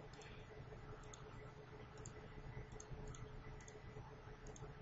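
About eight faint, irregularly spaced clicks of a computer pointing device as pen ink is erased from a presentation slide, over a faint steady electrical hum.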